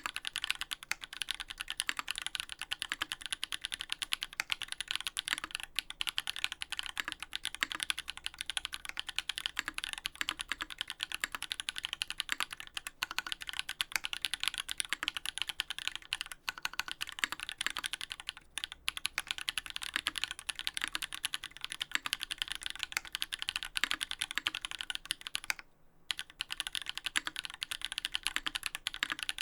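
Fast, continuous typing on a Duck Orion V3 custom mechanical keyboard with lubed Holy Panda tactile switches in an FR4 plate and GMK keycaps: a dense stream of keystroke clacks, with a brief pause about 26 seconds in.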